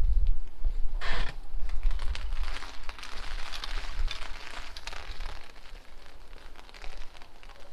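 Rain falling in strong wind, with a dense crackling patter of drops and a heavier gust about a second in. Wind buffets the microphone as a low rumble that comes and goes.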